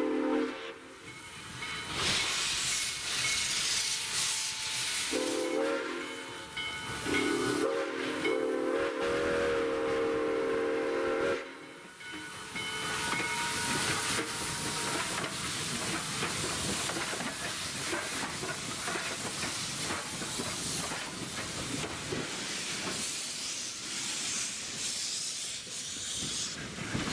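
Baldwin 2-6-6-2 steam locomotive's chime whistle sounding a short blast and then a longer one, each several notes at once. After the whistle comes a steady hiss of steam with the locomotive's running noise.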